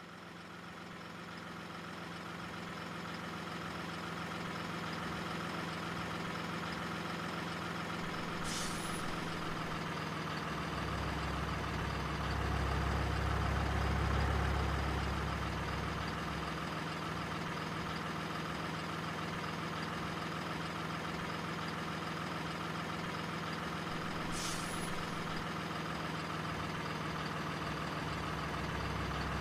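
Heavy diesel truck engine running steadily, fading in over the first few seconds and growing louder and deeper for a few seconds near the middle. Two short air-brake hisses come, one about a third of the way in and one near the end.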